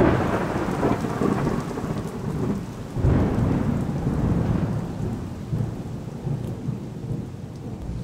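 Thunderstorm sound effect: steady rain with rolling thunder, one roll swelling at the start and another about three seconds in, then dying away toward the end.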